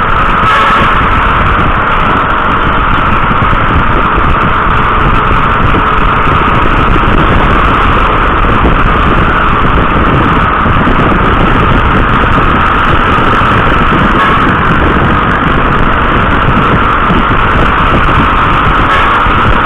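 Loud, steady vehicle noise of riding along a road: engine and road rumble with a constant rushing hiss, unchanging throughout.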